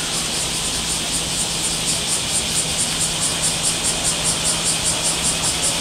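Cicadas buzzing in a rhythmic high pulse, about five or six beats a second, which grows stronger about a second and a half in, over a steady low hum and wash of noise.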